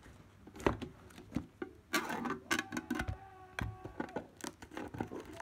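Plastic shrink-wrap on a metal Pokémon card tin being slit with a knife and peeled: irregular crackling and clicks, denser from about two seconds in, with a few knocks of the tin being handled.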